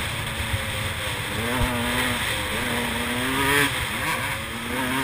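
KTM 125 EXC's two-stroke single-cylinder engine running under way on a dirt trail, its pitch rising and falling again and again with the throttle.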